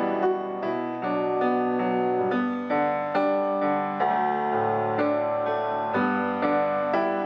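Piano music played on a MIDI keyboard controller driving a software piano: a steady flow of melody notes and chords over held bass notes.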